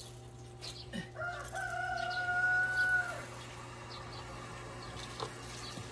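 A rooster crowing once, a single long call of about two seconds starting about a second in, held level and dropping off at the end.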